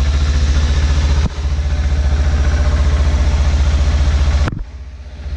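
Kawasaki Ninja sport bike's engine idling steadily, with a brief dip about a second in and a muffled, quieter stretch near the end.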